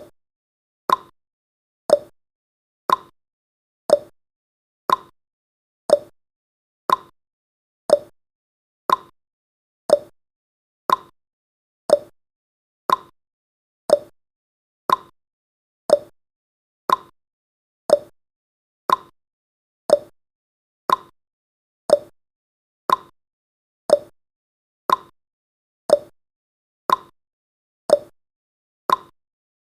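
Countdown timer's clock-tick sound effect: a short, sharp tick exactly once every second, evenly spaced.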